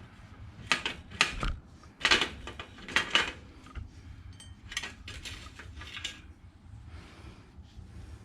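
Metal parts clinking and clattering as a bicycle crank and its bottom bracket bearings are taken out: several short bursts of clanking over the first six seconds, quieter near the end.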